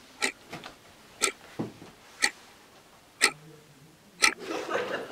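Clock ticking steadily, one sharp tick about every second, with a few softer, lower knocks between some of the ticks.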